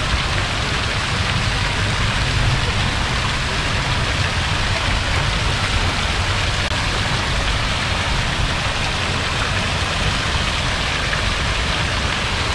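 Steady outdoor noise: an even hiss with a low rumble beneath it.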